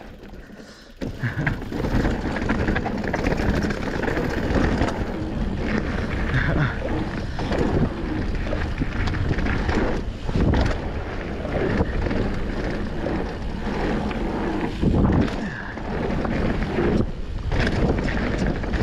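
Wind rushing over the camera microphone and tyres rolling over a dirt trail as a mountain bike descends, with a few louder knocks from the bike over bumps.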